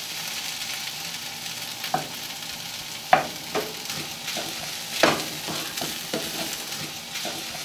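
Food frying in a pan with a steady sizzle, broken by a few sharp scrapes and knocks of a utensil against the pan, the loudest about three and five seconds in.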